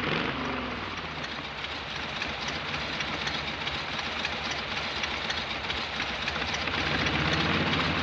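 Two Harley-Davidson panhead V-twin chopper motorcycles running as they ride in and pull up. The engines slow from a louder pass to a steady run, then grow louder again near the end.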